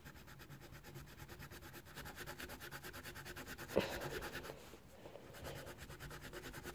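A colouring pencil scratching over paper in rapid, even back-and-forth strokes as an area is shaded in green. A single short click about four seconds in.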